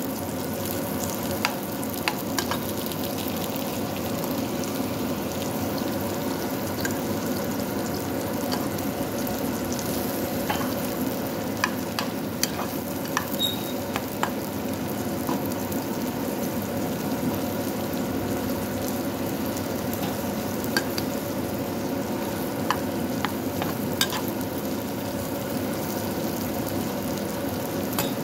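Sliced onion and green bell pepper sizzling steadily in hot oil in a pan, while a metal spoon stirring them clicks and scrapes against the pan now and then.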